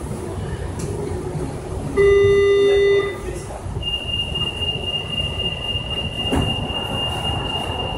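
Bombardier Innovia Monorail 300 train of São Paulo Metro Line 15 rumbling at low speed. About two seconds in a loud, low buzzer sounds for about a second, and soon after a steady high-pitched beep tone starts and holds.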